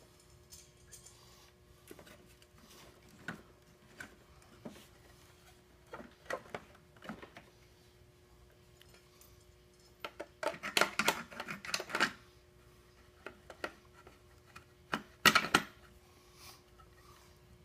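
Scattered clicks and clatter of small hard objects, with two busier bursts of rattling about ten and fifteen seconds in, over a faint steady hum.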